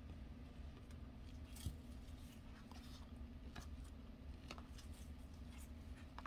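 Faint sliding and light clicks of glossy trading cards being flipped through in gloved hands, over a low steady hum.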